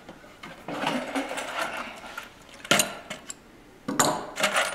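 Small metal screws clinking and clicking as they are picked up and handled, with a sharp click about halfway through and a quick run of clinks near the end.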